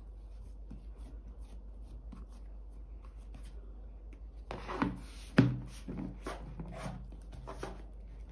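Soft rustling of hands on dough, then a plastic lid being fitted onto the bowl: a scrape and a sharp snap about halfway through, followed by several lighter clicks and rubs as the lid is pressed down around the rim.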